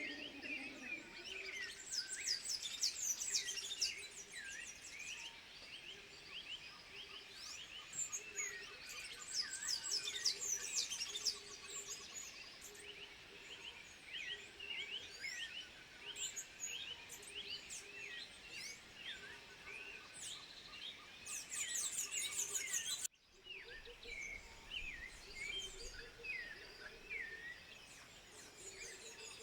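A dense chorus of animal calls: many overlapping short, high chirps and quick falling whistles, with a faint series of low notes underneath. There is an abrupt break about 23 seconds in, after which the chirping resumes.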